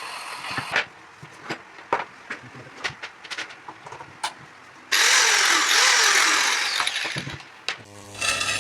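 Scattered clicks and knocks of tool parts being handled, then a power-tool motor runs loudly for about two and a half seconds and winds down with a falling whine.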